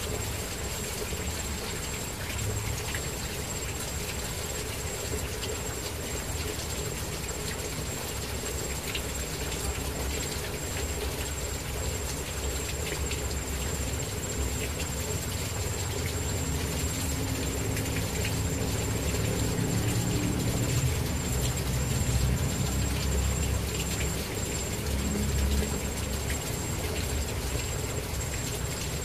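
Outdoor ambience: a low rumble that swells from about halfway through and eases off near the end, under a steady thin high-pitched whine and faint scattered ticks.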